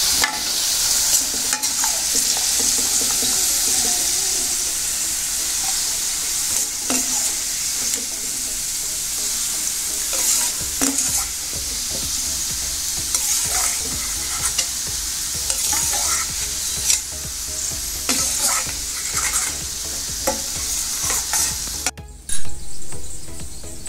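Sliced onions deep-frying in hot oil in a steel kadai, sizzling steadily as they are fried to a deep brown, with repeated scrapes of a spatula stirring and lifting them against the pan. Near the end there is a short loud knock and the sizzle stops.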